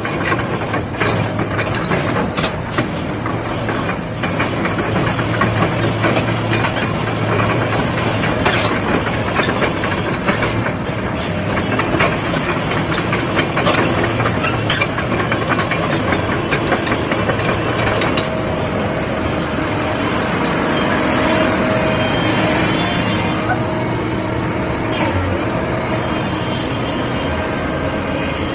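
Sany SY215C hydraulic excavator's diesel engine running steadily, with a scatter of sharp clanks from the machine during the first two-thirds.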